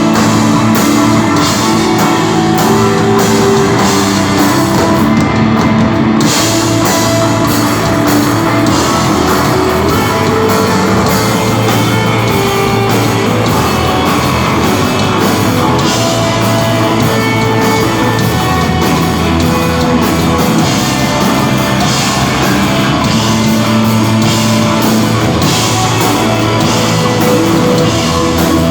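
Live rock band playing loud and steady: distorted electric guitar sustaining long notes over bass and a drum kit.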